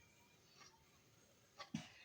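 Near silence: room tone, with one faint short sound near the end.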